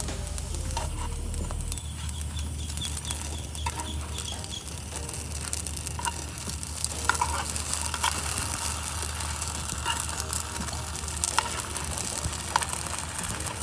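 Food sizzling and crackling in a frying pan, with scattered sharp pops and small clicks.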